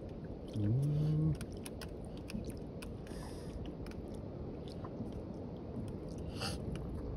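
Steady low rush of water and wind from a small boat out on the open sea, with scattered light clicks and crackles. A short hummed voice sound comes about a second in.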